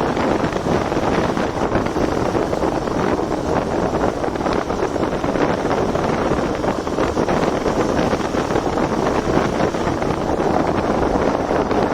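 Wind blasting steadily over the microphone of a moving motorcycle, with the KTM Duke 200 running underneath it at a steady pace.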